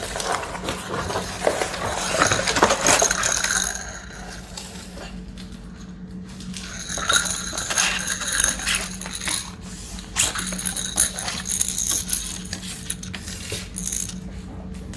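Baby rattle being shaken, its beads clinking and jingling in irregular bursts, busiest in the first few seconds and again midway, over a steady low hum.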